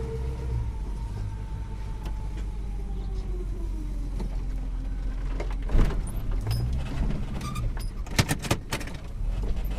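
Vehicle engine running, heard from inside the cab, its pitch falling over the first few seconds as the vehicle slows. In the second half come several sharp clicks and knocks, a quick cluster of them near the end.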